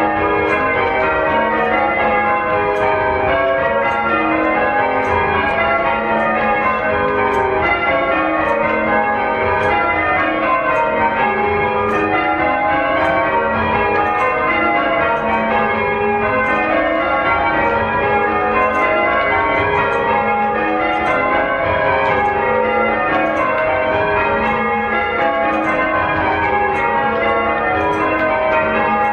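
Church bells being rung, struck one after another in an unbroken, steady sequence that repeats in descending runs.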